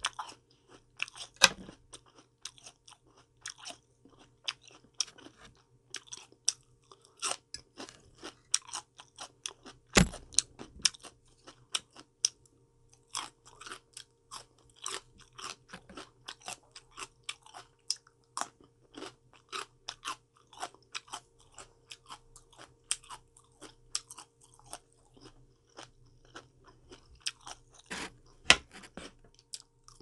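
A person chewing crunchy raw vegetables and fruit close to the microphone: a rapid, irregular run of crisp crunches, with a few louder bites scattered through.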